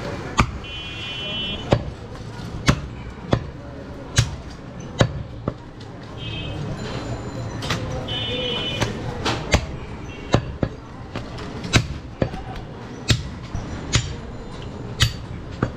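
Heavy butcher's chopper striking mutton on a wooden chopping block: about a dozen sharp chops at an uneven pace, roughly one a second. Three short high-pitched tones sound briefly, near the start, about six seconds in and about eight seconds in, over a steady murmur of background voices.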